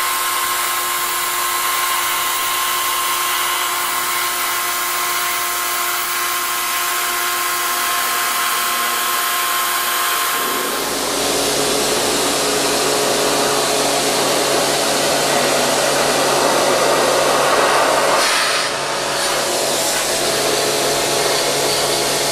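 NESCO high-pressure washer spraying a water jet onto concrete: a steady hiss of spray with the even drone of the machine under it. About halfway through the sound turns deeper and fuller, and it dips briefly near the end.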